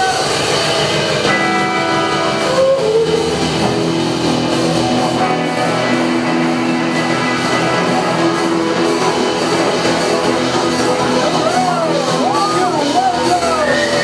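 Loud rock music with guitar, held chords sounding throughout, with crowd voices rising near the end.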